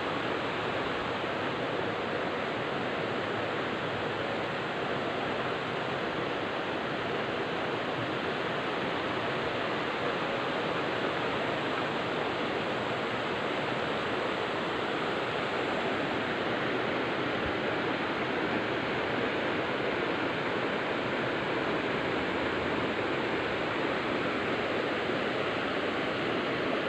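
Steady rush of a rocky river, water running fast over stones, even and unbroken throughout.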